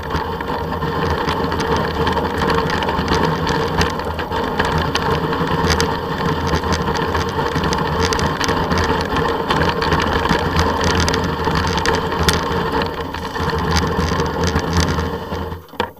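A vehicle's motor running steadily as it travels over a snowy track, with a rough rumble on the microphone; the sound drops away sharply near the end.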